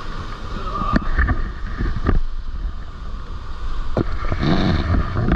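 Rushing water at a waterfall pool, with wind buffeting the microphone in a steady low rumble. A few sharp knocks come about a second, two seconds and four seconds in.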